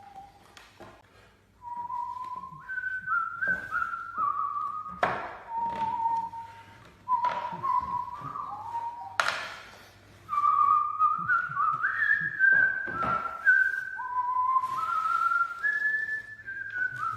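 A whistled tune: one clear tone moving in steps between held notes, like a melody. Several sharp knocks or taps fall between the notes, the loudest about five and nine seconds in.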